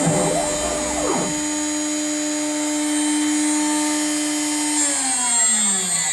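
CNC router spindle running a half-inch four-flute carbide end mill, giving a steady high whine. Brief rising and falling whirs from the axis drive motors come in the first second. About five seconds in, the whine slides steadily down in pitch as the spindle spins down at the end of the cut.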